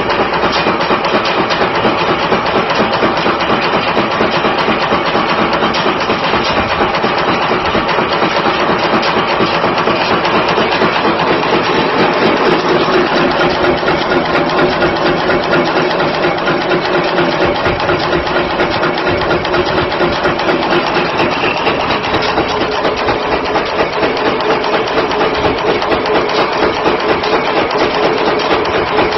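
Wire nail making machine running, with a steady, rapid metallic clatter from its heading punch and wire cutters working in quick succession.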